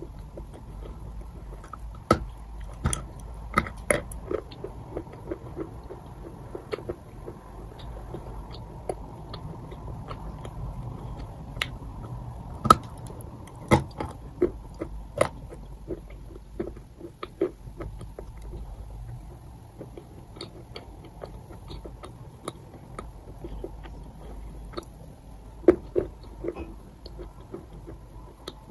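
Someone biting and chewing chalk: irregular sharp crunches and snaps, the loudest about halfway through and near the end.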